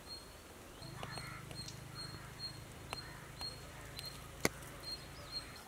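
Faint background: a low steady hum that starts about a second in and stops near the end, a handful of sharp clicks (the loudest about three-quarters of the way through), and faint short high chirps.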